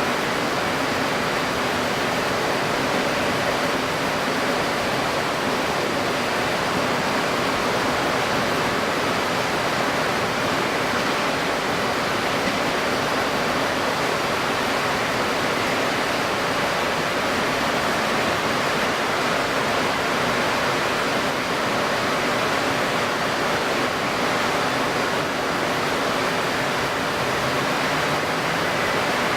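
Steady rushing noise of strong pre-typhoon wind and wind-stirred water, unbroken and even in level, played back at 1.75 times speed.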